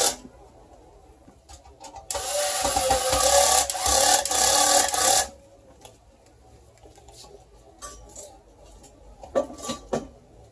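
A PC power supply unit being handled: a loud scraping rub for about three seconds, starting about two seconds in, with light clicks and knocks around it.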